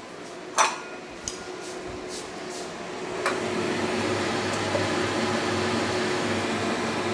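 A stainless steel bowl and spatula clinking against a cooking pot as seafood is scraped into simmering broth: one sharp clink about half a second in, lighter knocks a second later and near three seconds in. A steady background hiss grows louder from about three seconds in.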